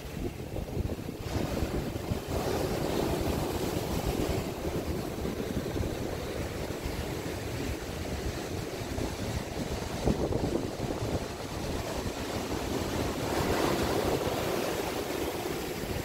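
Ocean surf breaking and washing up a sand beach in a steady rushing noise. It swells louder about two seconds in and again near the end as waves break.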